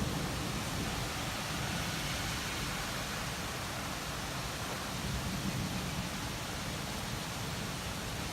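Thunderstorm rain making a steady, even hiss, with a low rumble underneath.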